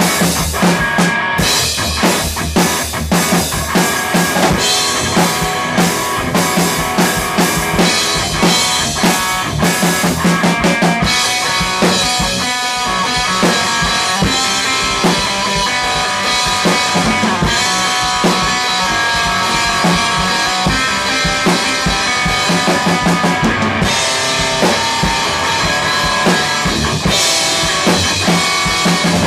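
Improvised rock jam: a Yamaha drum kit with Sabian cymbals played hard alongside a distorted Gibson Les Paul electric guitar through a Soldano amp. The cymbals wash more continuously through the middle stretch and again near the end.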